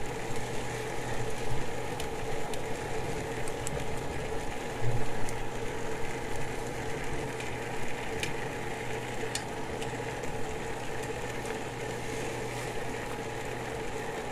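A pot of water boiling with bean sprouts blanching in it, over the steady hum of an induction cooktop on high heat, with a few faint clicks.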